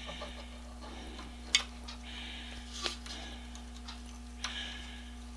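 Hand tap in a tap handle being turned into a stripped aluminum hole, cutting new threads: faint scraping with three sharp clicks spaced about a second and a half apart.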